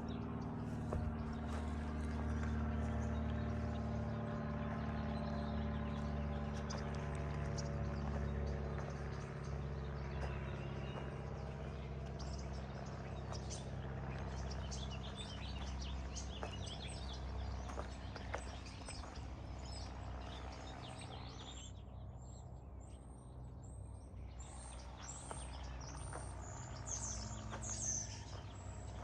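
A machine tool running steadily with a low hum, joined by short high bird chirps in the last several seconds.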